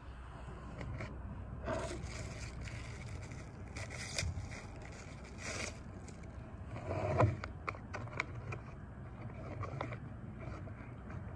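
Foil-lined Mountain House freeze-dried meal pouch crinkling as it is handled, with a plastic fork scraping inside it, in scattered short scrapes and rustles, the loudest about seven seconds in.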